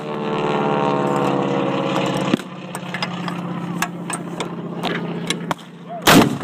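A vehicle engine runs steadily, dipping slightly in pitch and then dropping in level after about two seconds. Scattered sharp cracks of gunfire sound throughout, and a loud bang comes near the end.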